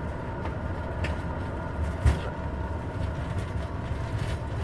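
Airbus A350 landing rollout heard from inside the cockpit: a steady low rumble of the wheels on the runway and the engines in reverse thrust while decelerating. A light knock about a second in and a sharper thump about two seconds in.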